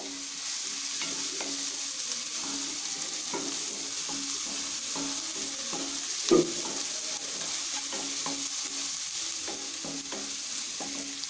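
Chopped onion, ginger-garlic paste and freshly added curry leaves sizzling in hot oil in a pan while being stirred, with the utensil scraping and tapping against the pan. There is one louder knock about six seconds in.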